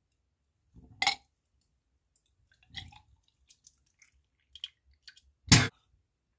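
Wet mouth and throat sounds of a person retching while being sick: a short gag about a second in and another near three seconds, faint wet clicks and drips, then a louder, deeper retch near the end.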